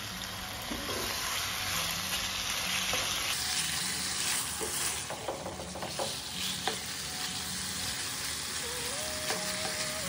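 Marinated boneless chicken pieces sizzling as they fry in hot oil in a nonstick pan, stirred and turned with a slotted spatula that clicks and scrapes against the pan now and then.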